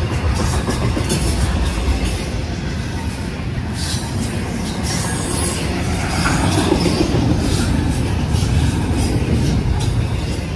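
A train rolling past on the rails: a steady, loud rumble of wheels on track.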